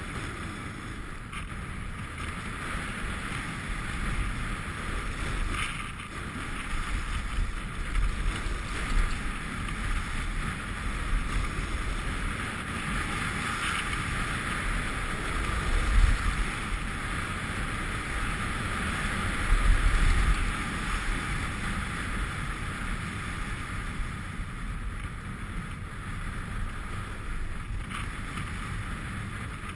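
Steady rush of wind over the camera's microphone while riding downhill, with the hiss of sliding over packed snow. A few louder low buffets of wind come past the middle.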